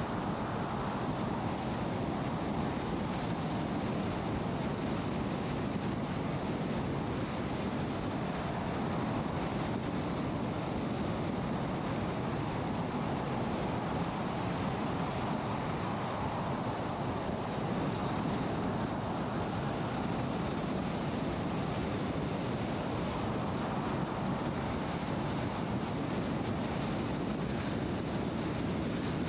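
Steady road and wind noise of a car driving at highway speed.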